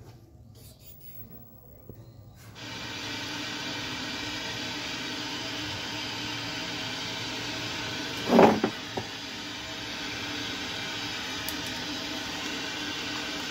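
Static hiss from the speaker of an LG 21-inch CRT TV tuned to an empty channel, switching on abruptly about two and a half seconds in and then holding steady. A brief louder sound stands out about eight seconds in.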